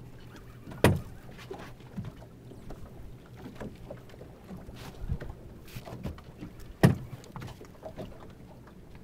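Water lapping and slapping against a small boat's hull on choppy water, with scattered small knocks and two sharp, loud knocks about six seconds apart.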